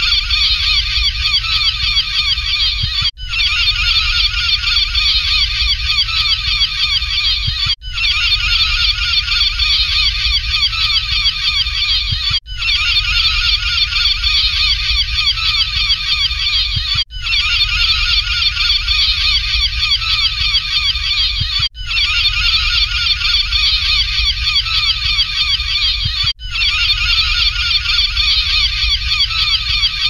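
A dense flock of gulls calling without pause, many short harsh calls overlapping. It is a short clip looped about every four and a half seconds, with a brief dip at each seam, over a steady low rumble.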